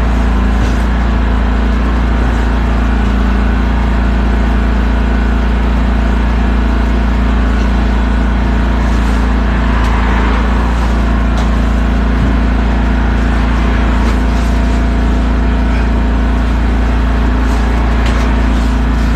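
Portable generator and air compressor engines running together with a steady low hum, with a few light clicks over it.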